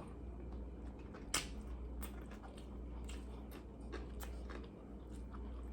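Faint close-miked chewing and mouth sounds, with scattered small clicks and one sharper click about a second and a half in, over a steady low hum.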